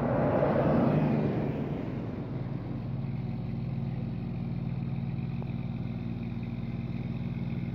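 A classic bus drives past on the highway, its engine and tyres loudest in the first two seconds and then fading. After that a bus engine idles steadily.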